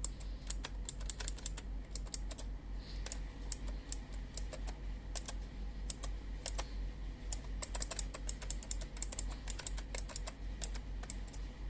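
Keys of a Vertux Raidkey mechanical keyboard with blue switches being pressed in quick, irregular runs of sharp clicks, as in typing. A steady low hum runs underneath.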